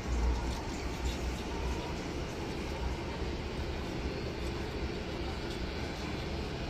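Casino ambience on a cruise ship: a steady low rumble and hum under a haze of background noise, with faint chimes and voices.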